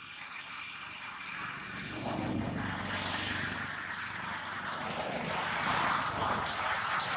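An aircraft flying over, its engine noise growing steadily louder.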